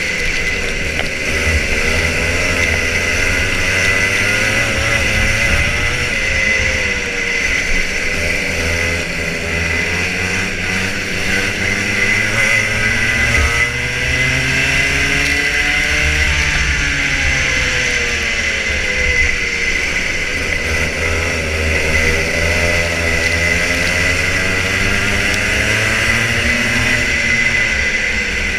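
Onboard sound of a racing kart's Rotax Junior Max 125cc two-stroke engine at racing speed, its revs climbing and dropping again and again, under a steady rush of wind and spray.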